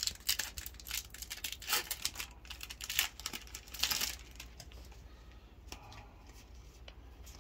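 Foil Yu-Gi-Oh booster pack wrapper crinkling and tearing in a quick run of rustles over the first four seconds, then softer rustling as the cards from the pack are handled.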